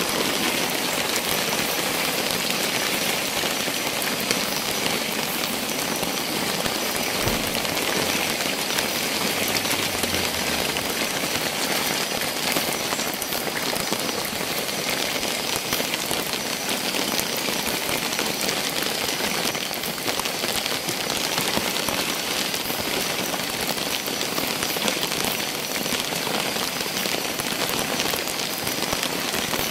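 Heavy rain falling steadily, a dense, even hiss of drops that does not let up.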